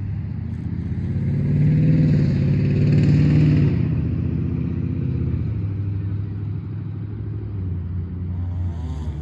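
Motor vehicle engine running, a steady low hum that swells to its loudest about two to three and a half seconds in and then fades, as a vehicle passing by.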